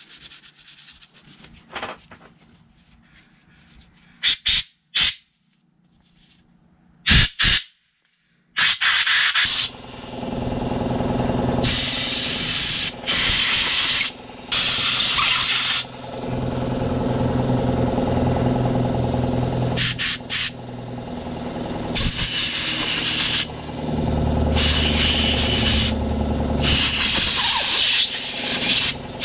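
Compressed-air blow gun blasting cleaned fuel pressure regulator parts in repeated hissing bursts of one to two seconds, starting about a third of the way in, over a steady low hum. Before the air starts there is quieter rubbing of a scrub pad and a few sharp clicks.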